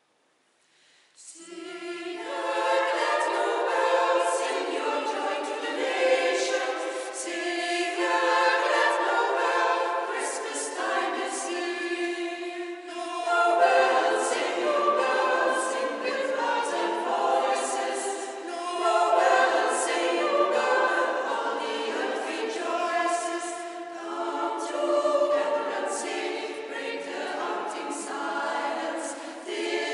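A choir singing, starting about a second in, in phrases broken by short pauses for breath.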